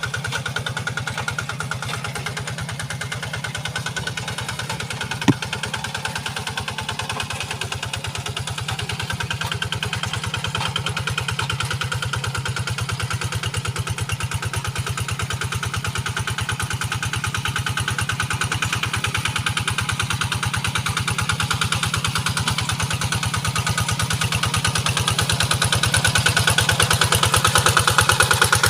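Kubota RD85 single-cylinder diesel engine of a hand tractor running steadily, slowly growing louder toward the end. A single sharp knock comes about five seconds in.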